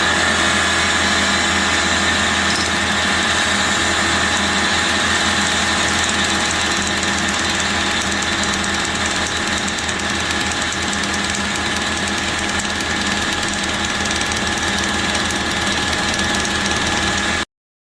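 Metalworking machine running steadily while machining a 92 mm piston, a constant high whine over a low hum, cutting off suddenly near the end.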